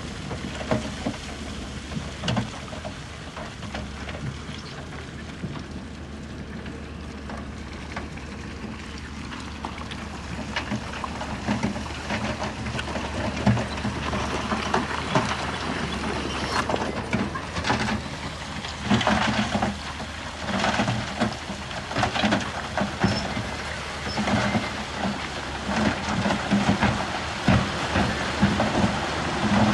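Bulldozer engine running steadily under a dense clatter of stone being pushed and spread: irregular knocks and crunches that get busier and louder about halfway through.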